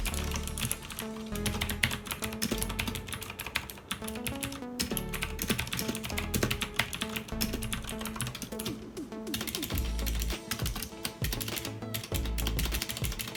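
Continuous typing on a Digital Alliance Meca Warrior X RGB mechanical keyboard with Outemu Blue switches, a dense run of sharp clicky keystrokes, over background music.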